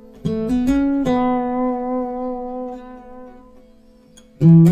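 Background music on acoustic guitar: a few quick picked notes, then a chord left ringing that slowly fades, then a loud strum near the end.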